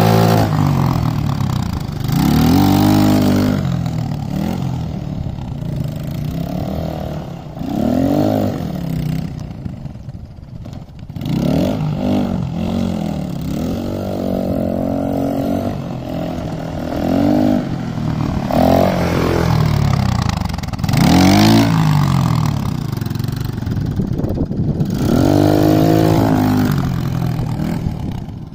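Homemade quad bike's TVS Apache single-cylinder motorcycle engine being ridden hard, the revs climbing and falling back again and again, roughly every two to three seconds.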